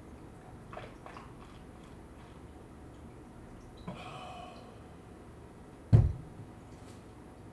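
Quiet sips of water from a glass jar, then one loud low thump about six seconds in.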